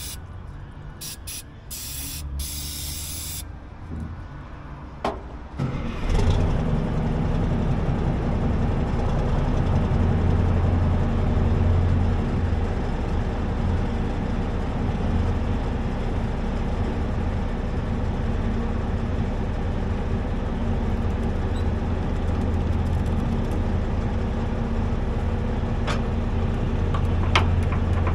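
Short hisses from an aerosol spray can, then about six seconds in the 6x6 military wrecker's engine starts and runs steadily at idle. A few sharp clicks near the end.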